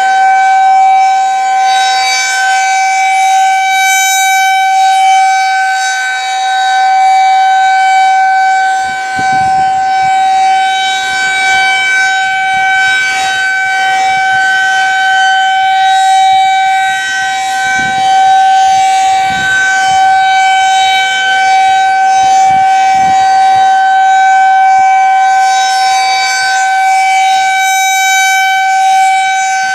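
Federal Signal 2001-SRNB rotating outdoor warning siren sounding a steady alert tone during its monthly test. The pitch stays level while the loudness slowly swells and fades.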